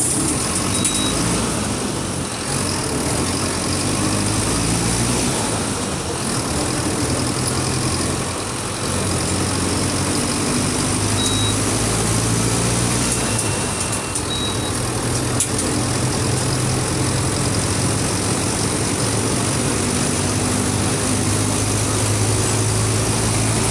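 Mercedes-Benz OF 1722M bus's four-cylinder turbodiesel engine running steadily, its note shifting slightly about ten seconds in.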